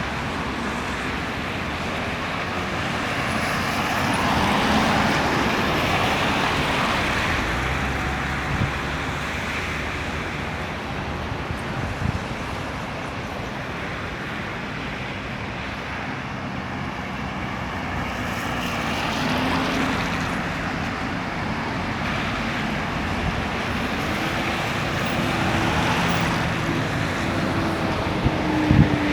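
Road traffic: a continuous rush of cars going by, swelling as individual vehicles pass every several seconds, with one engine's pitch climbing near the end.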